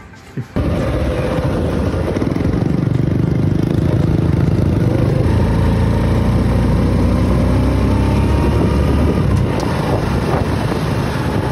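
Motorbike engine running during a ride, with heavy low rumble of wind on the microphone; it cuts in suddenly about half a second in.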